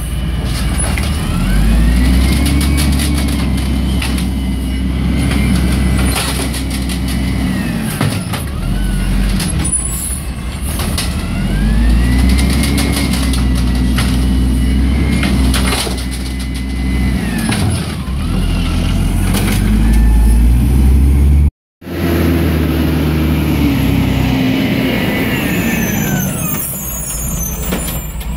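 Garbage truck engine on a Peterbilt 320 with an Amrep automated side loader, revving up and back down three times as it drives the hydraulic arm that lifts and dumps the carts. Clanks and knocks of the carts and arm are heard throughout.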